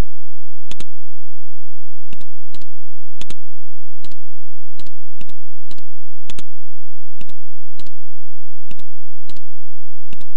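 Computer mouse clicking while a document is scrolled: short, sharp single clicks at uneven spacing, about one every half second to second. A faint steady hum sits underneath.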